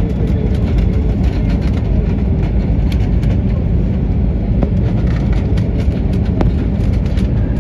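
Steady cabin noise of an airliner descending on final approach: jet engines and rushing air heard from inside the cabin, loud and heaviest in the low end.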